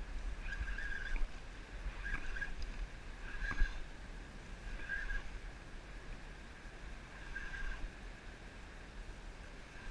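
Fishing reel buzzing in short bursts, about six times, as a hooked fish pulls against the bent rod. A couple of sharp knocks and a low steady rush of water and wind run underneath.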